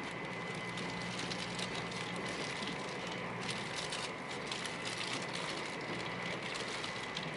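Meitetsu μSKY electric train running at speed, heard from inside the car: a steady rumble of wheels on rail with a thin constant whine. A spell of quick, irregular ticking comes through in the middle.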